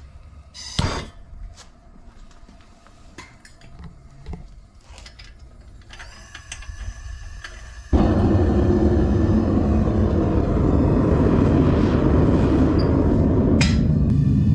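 Propane burner on a small metal-melting furnace lighting suddenly about eight seconds in, then burning with a loud, steady rushing noise as it fires the furnace. Before it lights there are a few clicks and knocks as the burner is handled.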